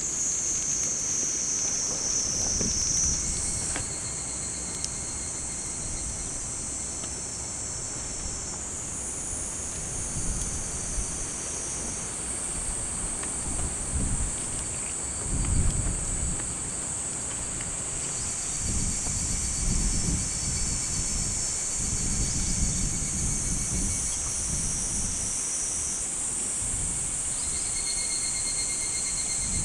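Several insects singing a steady, high-pitched chorus in summer, one voice fading out as another takes over. Gusts of wind rumble on the microphone now and then.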